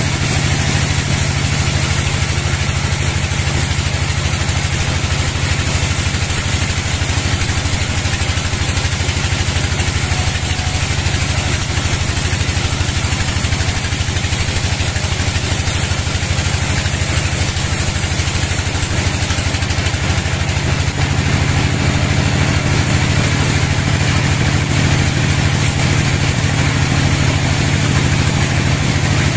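Band sawmill running steadily as its blade rips lengthwise through a log: a continuous low drone with a fast, even pulsing.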